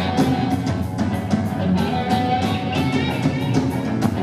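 Punk rock band playing live and loud: electric guitar over drums, with drum and cymbal hits about four times a second.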